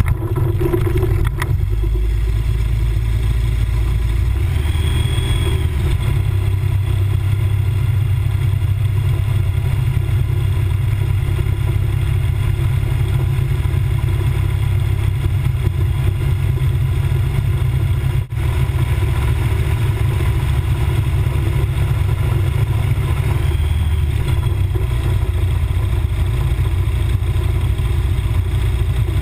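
MTO Sport gyroplane's pusher engine and propeller starting up abruptly, then running loud and steady close behind the propeller, with one brief dropout about eighteen seconds in.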